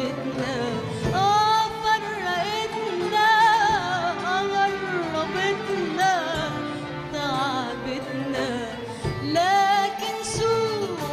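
A woman singing an Arabic song in a wavering, richly ornamented melodic line, accompanied by an orchestra with violins.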